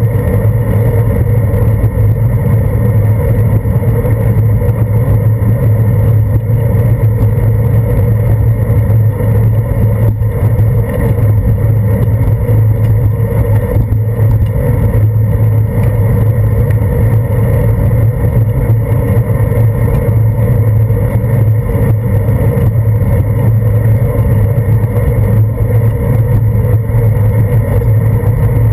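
Steady rumble and wind noise of a bicycle riding over wet pavement, picked up through a handlebar-mounted action camera's housing, with road traffic alongside. It runs loud and unchanged throughout.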